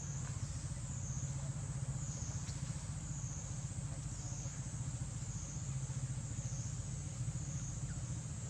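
Outdoor forest ambience: a high-pitched insect chorus, typical of cicadas, pulsing up and down about once a second over a low steady rumble.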